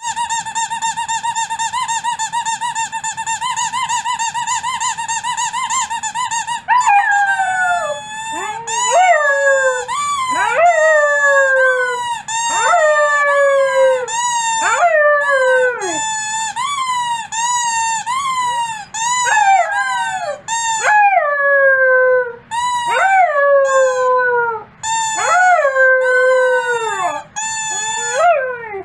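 A steady held tone for about the first seven seconds, cut off sharply. Then a wolfdog puppy howls, a long run of short howls, each sliding down in pitch, about one a second.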